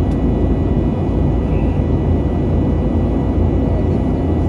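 Steady cabin noise inside an Airbus A320neo: a loud, even rumble of engines and airflow, with several steady high tones from the engines over it.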